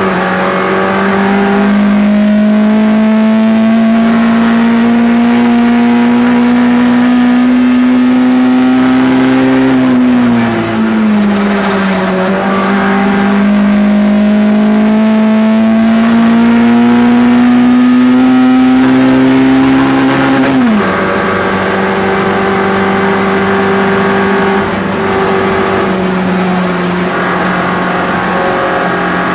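Hillclimb race car engine under hard load. The revs climb slowly, dip briefly about ten seconds in and climb again, then fall sharply about two-thirds of the way through and run steadier at lower revs for the rest.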